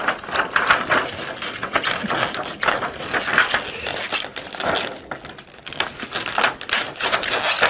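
Thin white backlight reflector sheet of an LG 32LN5403 TV being bent and peeled off the tray over the LED lenses, crackling and rustling with many irregular clicks. It goes quieter for a moment about five seconds in.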